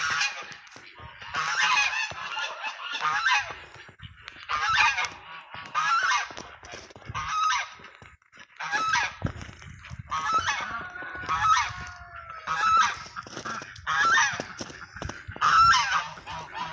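Domestic geese honking over and over, a dozen or more short honks at about one a second.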